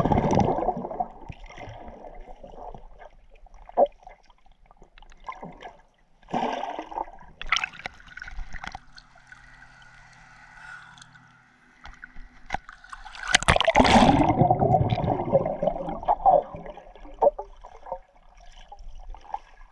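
Lake water splashing and gurgling against a GoPro's housing as it dips underwater and comes up through the surface. The splashing comes in uneven bursts, loudest at the start, around six to eight seconds in, and longest from about thirteen to sixteen seconds in.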